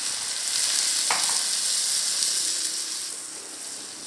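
Coconut milk and tomato purée sizzling in a hot kadai over ghee-fried rice and spices as a wooden spatula stirs them together. The sizzle is steady at first, then dies down over the last second as the liquid cools the pan.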